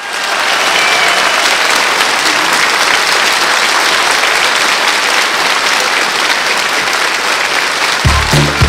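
Studio audience applauding steadily. About eight seconds in, the song's backing music comes in with a heavy bass beat.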